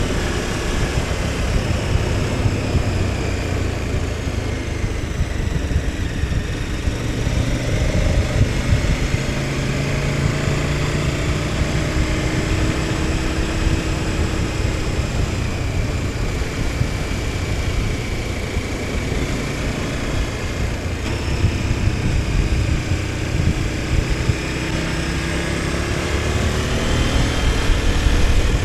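KTM 1290 Super Adventure S's V-twin engine running while the motorcycle is ridden, its pitch drifting slowly up and down with the throttle, over steady wind rush.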